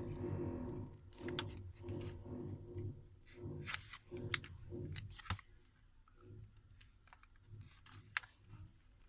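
Sharp clicks and light scraping of small hand tools and parts against a phone's glass back and frame as it is prised apart, over a steady electric hum that fades after about five seconds.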